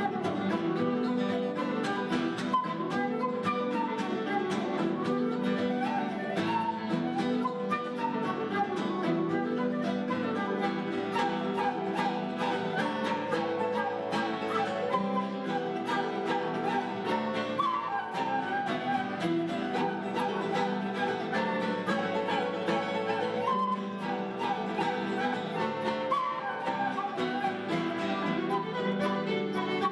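Irish traditional tune played live by a small Celtic band. Flute and fiddle carry a quick melody over acoustic guitar and harp accompaniment.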